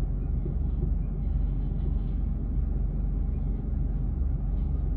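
Freight train of boxcars and bulkhead flatcars rolling past with a steady low rumble.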